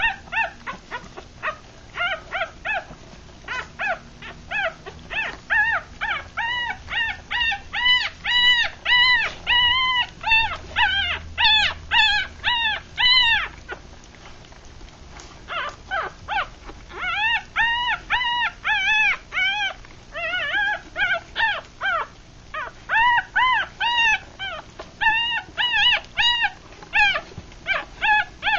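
Three-day-old Rat Terrier–Chihuahua cross puppies squeaking and crying as they nurse: quick high-pitched calls, several a second, each rising and then falling in pitch. There is a pause of about two seconds just past the middle.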